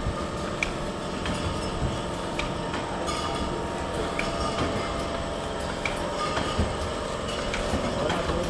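Wine bottling and labelling line running: a steady mechanical hum with sharp clicks and glass clinks repeating about every half second as the bottles move along the conveyor.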